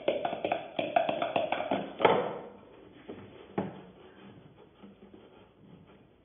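Quick clattering knocks of a wooden spoon stirring in a plastic mixing bowl and of kitchen utensils on a wooden table. The loudest knock comes about two seconds in and another follows a second and a half later, then quieter shuffling.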